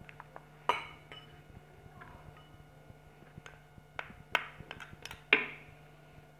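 A metal spoon clinking against a small glass bowl and the blender jar as spoonfuls of seasoning are tipped in: a handful of sharp, ringing clinks, the loudest under a second in and again about five seconds in.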